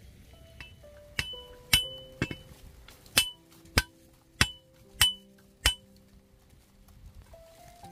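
A metal hand tool striking repeatedly: about eight sharp blows, a little over half a second apart, each with a brief metallic ring, stopping about six seconds in.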